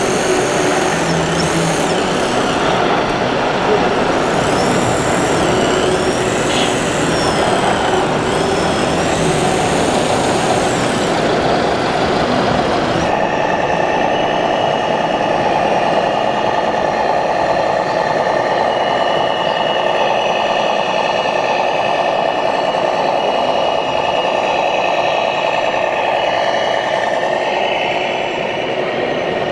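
1/14-scale radio-controlled model trucks and machines running, their electric drives whining and their sound units giving truck engine and air-brake noises, in a steady din of hall noise. The sound changes abruptly about 13 seconds in.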